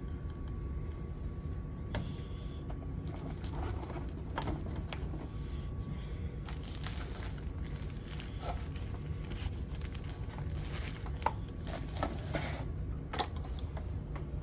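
Packaging rustling and crinkling with scattered light clicks and taps as a boxed model train engine is unwrapped, over a steady low hum.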